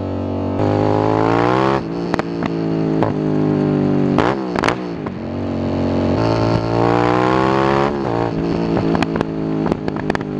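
A 2013 Hyosung GT650R's 650cc V-twin, breathing through a Danmoto JISU aftermarket exhaust, revs hard inside a tunnel with its pitch climbing through the gears. Twice it drops off when the throttle closes, each time with a run of sharp exhaust pops.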